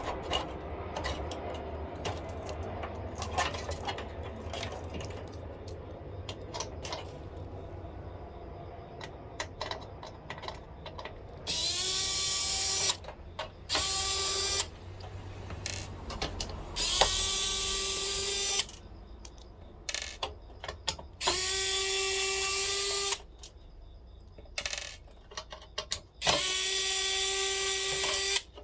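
Small cordless electric screwdriver running screws in a PC case, five short runs of one to two seconds each. Each run's pitch rises quickly and then holds steady. Before and between the runs come clicks and knocks of hardware being handled.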